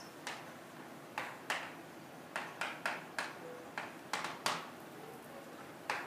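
Chalk writing on a chalkboard: a string of short, irregular taps and brief scrapes as letters are formed.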